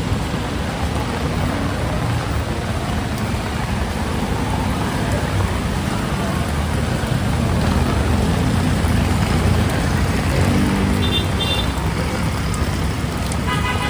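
Heavy rain falling steadily with road traffic running through it, tyres hissing on the wet street and engines rumbling low.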